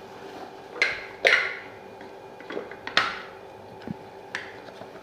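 Kitchen utensils clinking and knocking against a cooking pot: about six sharp strikes, each ringing briefly, the loudest about a second in and again about three seconds in.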